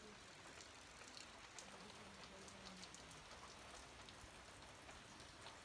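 Faint, steady light rain, with scattered drops ticking.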